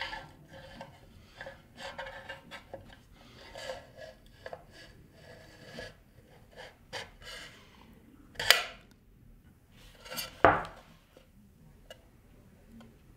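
Hard drive being slid into and handled in its aluminium LaCie d2 enclosure: metal scraping and rubbing on metal with small clicks and taps. Two louder knocks come about eight and a half and ten and a half seconds in.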